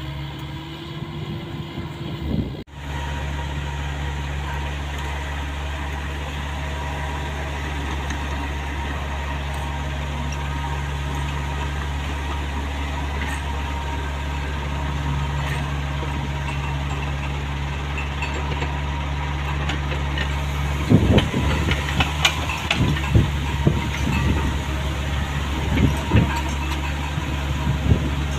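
Caterpillar mini excavator's diesel engine running steadily with a low drone. From about two-thirds of the way in, irregular metallic clanks and knocks join it.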